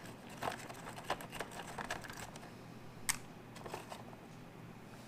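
Light clicking, tapping and rustling of small objects and packaging being handled by hand, with one sharper click about three seconds in.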